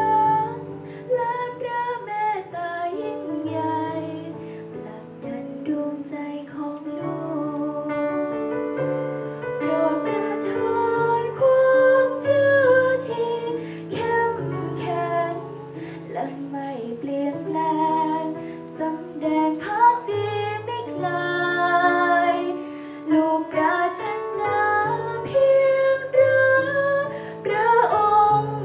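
A girl singing a slow devotional song into a microphone, accompanied by an electronic keyboard playing held bass notes and chords.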